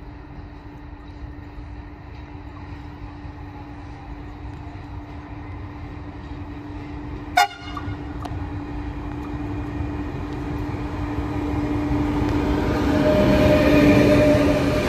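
Freight train hauled by two Siemens Taurus (ÖBB class 1116) electric locomotives approaching, its steady hum growing louder through the second half. About halfway there is a single short horn toot.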